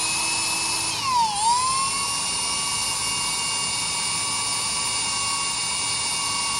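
Electric drill with a 5/32 bit running at speed, drilling out the factory crimped pin of a door handle's latch mechanism. Its steady high whine dips in pitch about a second in as the bit bites, then climbs back and holds steady.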